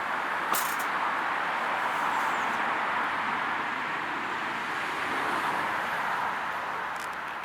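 Steady rushing outdoor background noise with one sharp click about half a second in.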